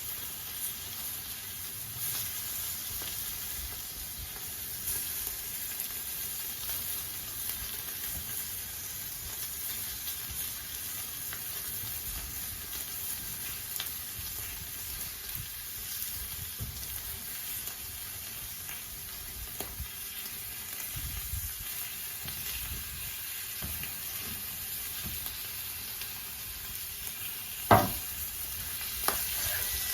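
Chipolata sausages sizzling steadily in oil on a Blackstone flat-top griddle. Two short sharp knocks sound near the end, the first the loudest.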